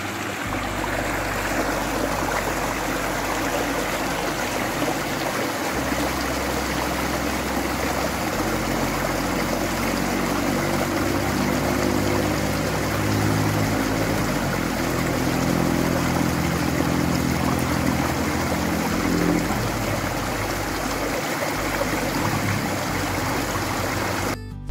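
Overflow water from a rain-swollen pond gushing out through a small bamboo-staked outlet: a steady rush of splashing, foaming water. It cuts off abruptly near the end.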